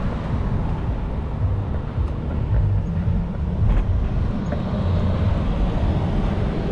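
Low, steady rumble of wind and road noise on the microphone of a camera riding along on a bicycle, with a few faint clicks.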